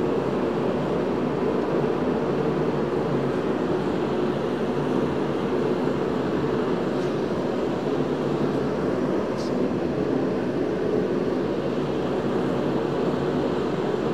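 Steady blowing hum of a shop heater running, with a couple of faint light clicks from metal engine parts being handled.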